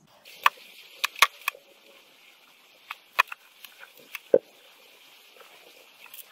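Light, irregular clicks and taps of small tools and electronic parts being handled, about nine in the first four and a half seconds, then only a faint steady hiss.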